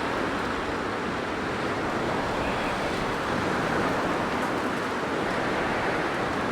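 Blizzard wind blowing steadily, a dense rushing noise that swells slightly and eases.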